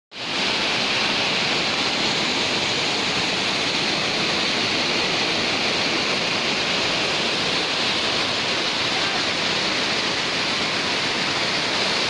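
Waterfall cascading over rock ledges: a steady rush of falling water.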